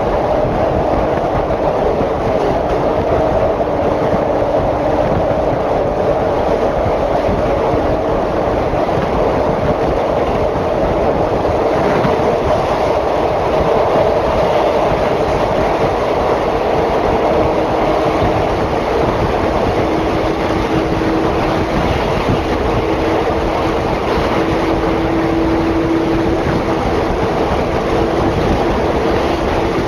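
Electric train of the JR Kyushu Kagoshima Line running at speed through a rail tunnel, heard through an open carriage window: a loud, steady rush of wheel and track noise with a steady hum underneath.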